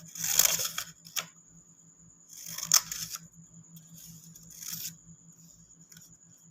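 Scissors cutting folded paper: a few short snips, each a brief crunching rasp, with a sharp click near the middle.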